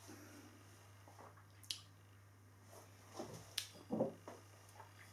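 Faint handling sounds of a beer glass and bottle: a couple of sharp small clicks, then soft knocks about four seconds in as the bottle is reached for and picked up, over a low steady hum.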